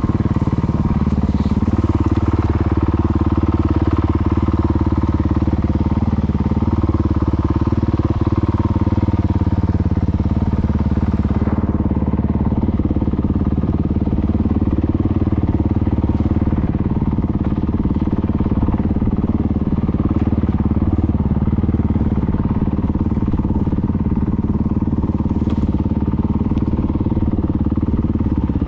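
Motorcycle being ridden, its engine running at a steady pitch with no revving.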